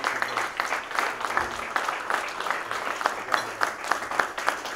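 An audience applauding: many people clapping in a dense, steady stream.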